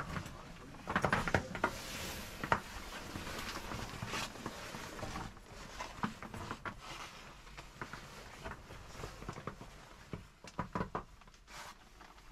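Irregular scuffs, knocks and clothing rustle of hikers and their gear clambering through a narrow crack between rock and ice, with a cluster of sharp knocks about a second in and another near the end.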